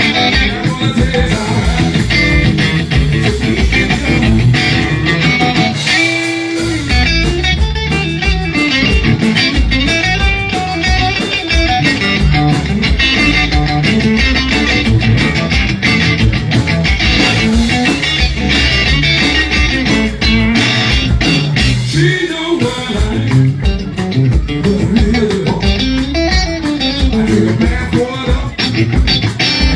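Live blues band playing, with electric guitar to the fore over bass and drums.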